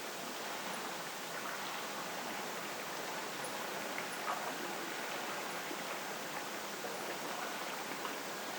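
Steady wind and sea wash at night: an even hiss with a few faint scattered ticks.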